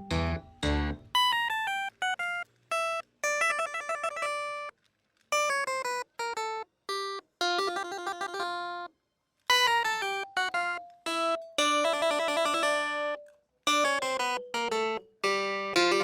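Background music: a light melody of plucked and keyboard-like notes, broken by brief silent gaps.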